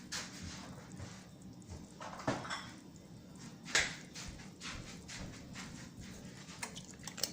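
Scattered clinks and knocks of kitchen utensils and containers being handled at the stove over a steady low hum, with the sharpest click a little past halfway.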